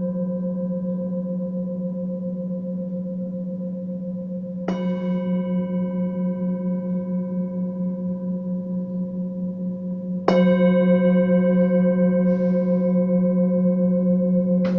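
Singing bowls ringing with a low, slowly wavering hum and higher overtones, struck again about five seconds in and, more loudly, about ten seconds in.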